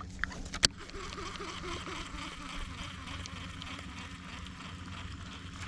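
Steady rush of flowing river water, with one sharp knock about half a second in.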